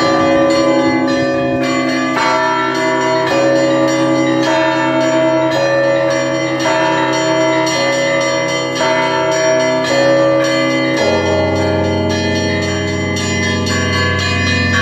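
Russian Orthodox cathedral bells ringing together, small and large bells struck in a repeating pattern with new strokes about every second. About eleven seconds in, a deep bell comes in louder beneath the smaller ones.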